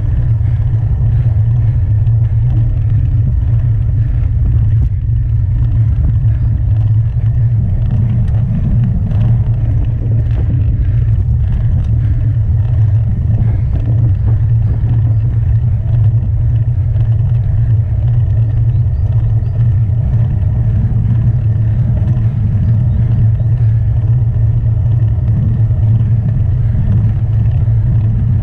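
Wind buffeting the microphone of a handlebar-mounted action camera on a moving road bike: a loud, steady, low rumble.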